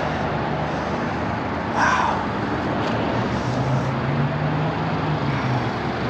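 Road traffic noise: a steady rush of passing vehicles, with a low engine hum that strengthens about halfway through and a brief higher-pitched sound about two seconds in.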